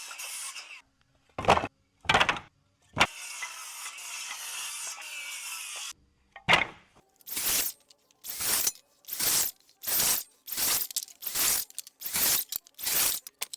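Scrap wood being handled: three separate knocks, then about a dozen evenly spaced strokes, roughly one every 0.7 seconds.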